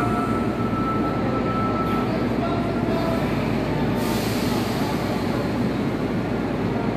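Sendai Subway Namboku Line train standing at an underground platform, its equipment running with a steady hum and whoosh. A hiss comes in about four seconds in.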